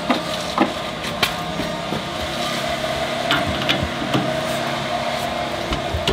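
A handful of sharp, irregular metallic clicks and clinks as a socket wrench is worked on the nut of the drag link end, over a steady background hum.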